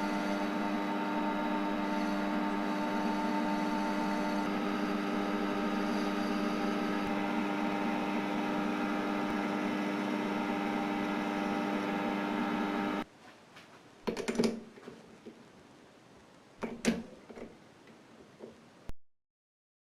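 A steady electrical or mechanical hum with many layered tones stops abruptly about two-thirds of the way through. A few short knocks or clicks follow before the sound goes silent.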